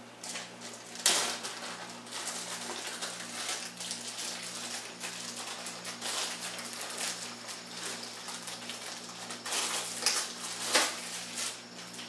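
Plastic wrapping crinkling and rustling as a lathe chuck is worked out of it by hand, with louder crackles about a second in and again near the end. A faint low electrical hum runs underneath.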